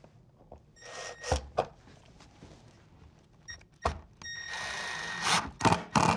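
Milwaukee cordless impact driver driving a screw into a plastic surface-mount siding block. It runs briefly about a second in, then runs with a steady whine from about halfway, breaking into quick pulses, about four a second, near the end as the screw is driven home.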